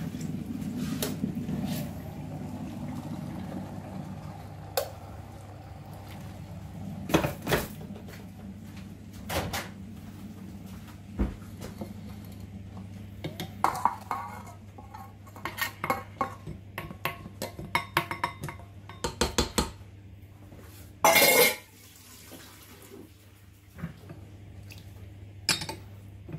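Glass and metal bowls and a spatula clinking, knocking and scraping against a steel stand-mixer bowl as beaten eggs and oil are poured and scraped in. Scattered short clicks and knocks, with one louder half-second scrape about twenty seconds in.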